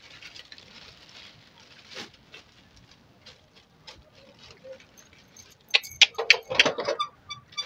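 Polythene bag crinkling as water pouches are shifted inside it, with scattered small clicks. Near the end comes a burst of louder plastic rustling and clicks as the bag and the hand heat sealer are handled.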